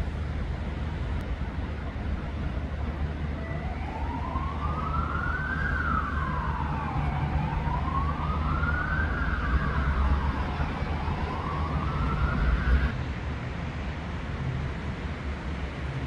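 Emergency vehicle siren wailing, slowly rising and falling in pitch about three times over a steady low rumble of city traffic. It cuts off suddenly near the end.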